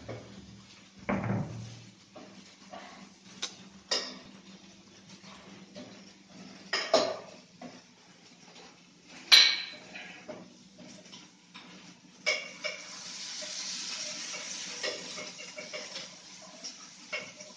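Pots, pans and metal utensils clinking and clattering in a series of separate knocks, the sharpest a little past halfway. From about two-thirds in, a steady hiss runs beneath the clatter.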